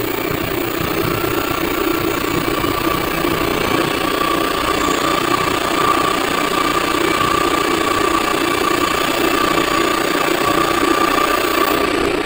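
Car alternator converted into a 36 V brushless (BLDC) motor, run steadily from an e-bike controller and twist throttle: a steady mechanical hum with a steady whine over it.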